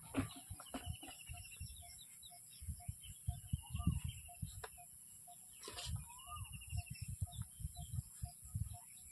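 Birds chirping, with a chicken clucking now and then, over irregular low rumbling and a faint regular ticking about twice a second.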